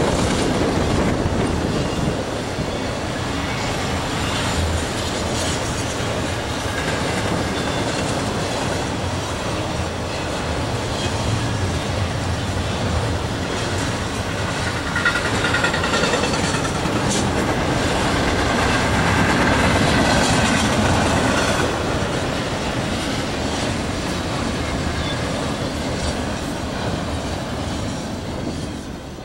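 Double-stack intermodal freight train's well cars rolling past, a steady loud rush of steel wheels on the rails. It falls away near the end as the last car passes.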